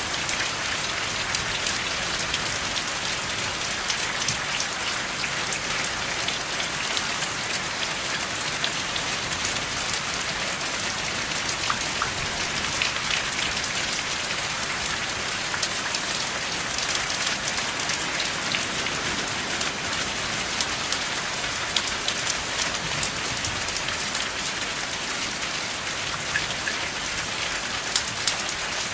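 Steady rain falling, with no thunder; many separate drops come through as short sharp ticks over the even hiss.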